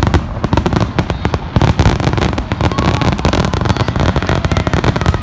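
Aerial fireworks shells bursting in a rapid, unbroken barrage of booms and crackle.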